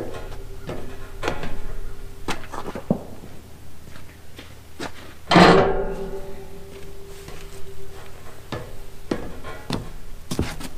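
Metal trailer loading ramps clanking and banging as they are handled, with boots thudding on the trailer's wooden deck. The loudest is a sharp metal clang about five and a half seconds in. Background music plays underneath.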